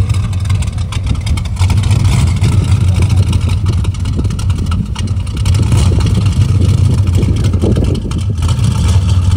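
Dodge Charger's engine running at idle through its twin tailpipes: a steady, low exhaust rumble.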